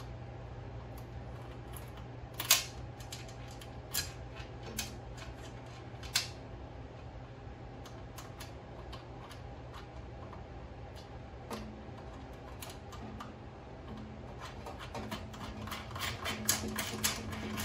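Scattered small metal clicks and taps as a lock washer and nut are fitted by hand onto a propane regulator's mounting bolt. The clicks come faster near the end, over a steady low hum.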